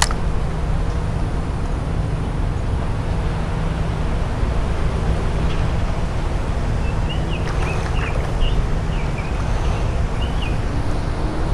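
Steady low outdoor rumble, with a few short high chirps between about seven and ten seconds in.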